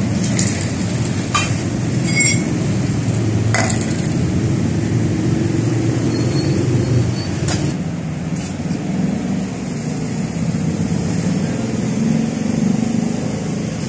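Truck-mounted crane's engine running steadily, easing slightly about halfway through, with several sharp metallic clinks and knocks from the hoisted air-conditioning unit and its rigging.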